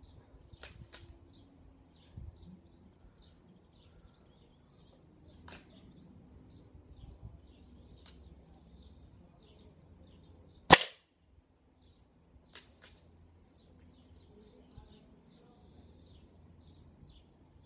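A single sharp crack about two-thirds of the way in, from a shot with a tuned, moderated Weihrauch HW99S .22 spring air rifle firing RWS Hobby pellets. From this end of the garden the shooter expects the noise to be mostly the pellet hitting the target board. Small birds chirp throughout, with a few faint clicks.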